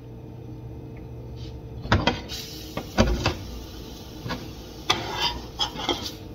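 Metal spatula scraping and tapping against a frying pan as a pancake is loosened and flipped: a string of sharp clicks and scrapes starting about two seconds in, over a steady low hum.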